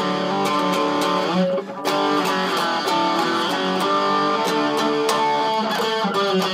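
Electric dombra played in a rock style: a riff of quick plucked and strummed notes with a guitar-like sound. There is a brief break about one and a half seconds in.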